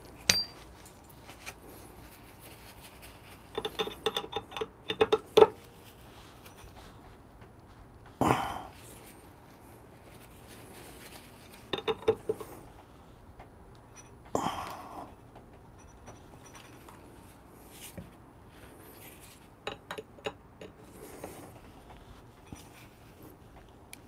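Screwdriver working the burr screws of a DF64P coffee grinder as the new burr is tightened down: groups of light metallic clinks with a short ring, and a couple of louder scraping rustles in between.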